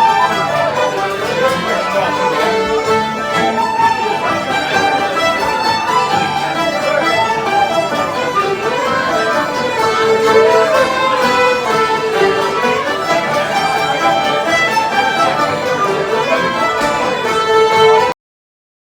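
Celtic folk tune played by musicians with a fiddle leading the melody. The music cuts off abruptly about a second before the end.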